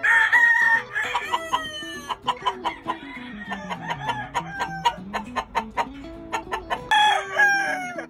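Rooster crowing twice: a long crow at the start and another about seven seconds in. Between the crows comes a rapid run of short, sharp notes, with background music underneath.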